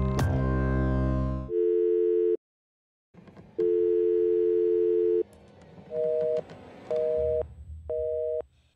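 A music sting ends about a second and a half in. Then comes a telephone line tone: two steady notes sounding together, given twice with a silent gap. After that a busy signal beeps about once a second, each beep two notes at once.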